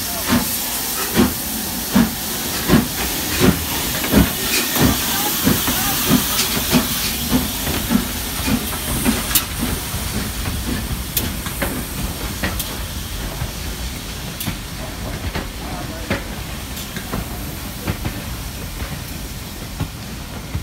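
LMS Princess Coronation class four-cylinder Pacific steam locomotive 6233 Duchess of Sutherland pulling away, its exhaust beating about once every three-quarters of a second over a loud hiss of escaping steam. In the second half the beats fade and the coaches roll past with sharp wheel clicks over the rail joints.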